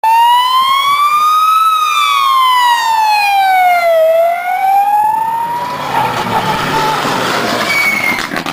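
A siren wailing slowly up and down, one long rise, fall and rise again over about six seconds, from the official car with a roof light bar that runs ahead of the rally cars. Near the end a rally car rushes past close by, engine and tyre noise.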